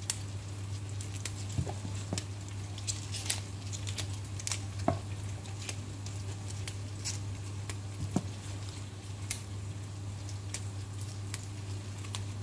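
Crisp, irregular snaps and rustles of kailan (Chinese kale) leaves and stems being torn off the stalks by hand, over a steady low hum.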